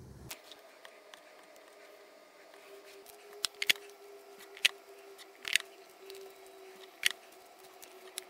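About five sharp little clicks and taps in the second half, as tweezers set tiny candy decorations onto a chocolate donut on a small toy plate. A faint steady hum runs underneath.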